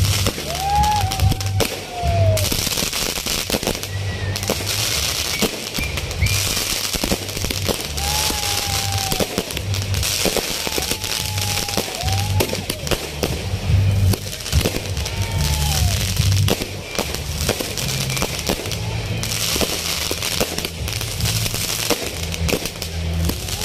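Aerial fireworks crackling, with a dense run of small sharp pops from crackling stars bursting overhead. Background music with a steady low beat plays along.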